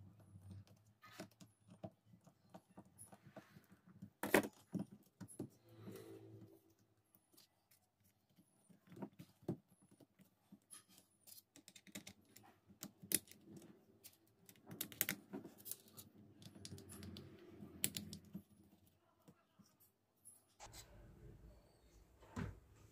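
Scattered light clicks, taps and scrapes from handling an electric drill's plastic housing and a screwdriver as the drill is reassembled, with a few sharper knocks.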